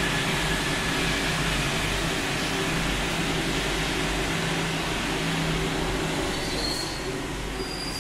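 Paris Métro train running into the station behind platform screen doors: a steady rumble with a low motor hum, and thin high-pitched squeals starting near the end.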